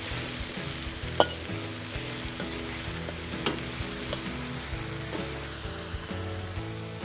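Vegetables in beef stock sizzling in a wok over a gas wok burner while a metal wok spatula stirs and scrapes them, with sharp clicks now and then as the spatula strikes the wok.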